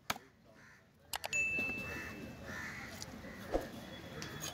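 A big fish-cutting knife chopping through a trevally head on a wooden block: sharp knocks, one about a second in that leaves a brief metallic ring, and another heavier chop past the middle. Crows caw in the background.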